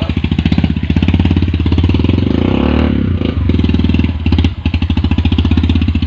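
Motorcycle engine running at low revs with a rapid, even firing pulse as the bike crawls through deep mud, its note dipping briefly about two-thirds of the way through.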